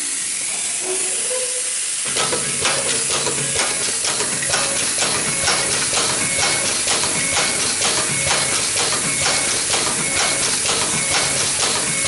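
An automatic zipper slider mounting machine running its test cycle. A steady air hiss, then about two seconds in a low hum and fast, even clicking begin as the mounting head cycles.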